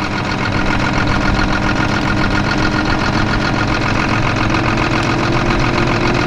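Diesel tractor engine running steadily, its pitch rising slightly about four seconds in.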